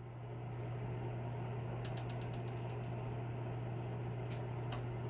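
Small gear motor of a cup turner humming steadily as it slowly spins an epoxy-coated tumbler, with a quick run of light clicks about two seconds in and two more single ticks near the end.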